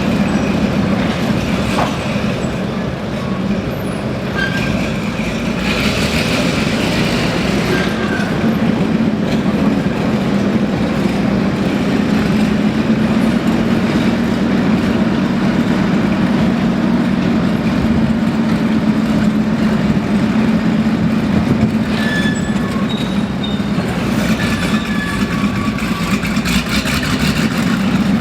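Maybach HL 120 V12 petrol engine of a Panzer IV Ausf. G tank running steadily with a deep, even hum.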